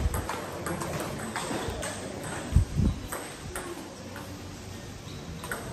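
Table tennis balls ticking off paddles and tables in an irregular patter of sharp clicks, with two dull thumps about two and a half seconds in.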